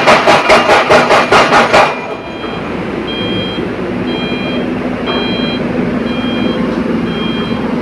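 Yuchai YCR65E rotary drilling rig at work: a loud, rapid knocking at about five strokes a second for the first two seconds, then its engine running steadily while a warning beeper sounds about once a second.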